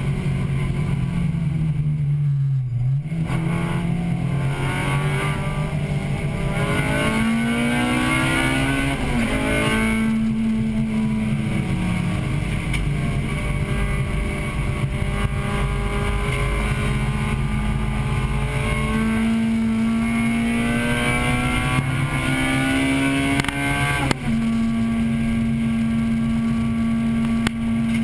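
Heard from inside the cabin, a 1998 Acura Integra Type-R's 1.8-litre VTEC four-cylinder engine is being driven hard on track. The revs climb steadily in each gear, then drop suddenly at the upshifts, about nine seconds in and again near the end. Early on the revs fall and pick up again as the car slows for a corner.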